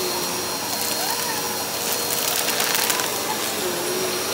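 Upright bagless vacuum cleaner running over carpet with a steady motor whine. From about a second in to about three seconds in, a fast rattling of clicks rides over it.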